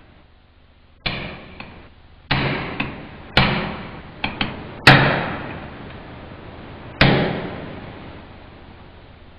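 Hammer blows on a seal-installer tool, driving a new sealing cap into an F5M41 manual transmission case. About five firm strikes at uneven intervals, each ringing out for about a second, with a few lighter taps between them.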